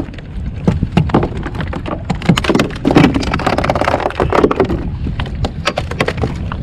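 Dense, irregular knocks and slaps with some splashing as a hooked bonito is brought to a plastic pedal kayak and landed, the fish thrashing against the hull and deck; wind rumbles on the microphone throughout.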